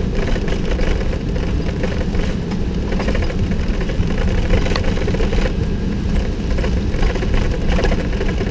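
Cockpit noise of a Boeing 747 on its takeoff roll: the engines at takeoff thrust and the landing gear rumbling over the runway, a loud steady rumble with light irregular knocks.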